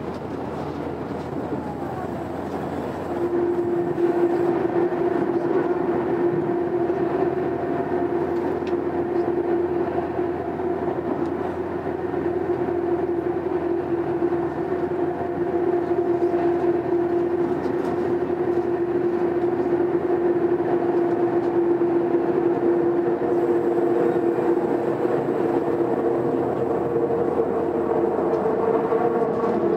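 Onboard running sound of a Tobu 20000 series subway train between stations in the tunnel: a steady rumble of wheels on rail and car body. About three seconds in it grows louder, and a steady hum at one pitch joins it and holds.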